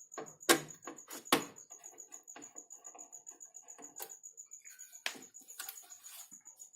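Sharp clicks and knocks of a desktop computer's metal cabinet and parts being handled with a screwdriver during disassembly: two loud ones about half a second and a second and a half in, a few lighter ones later, and some scraping near the end.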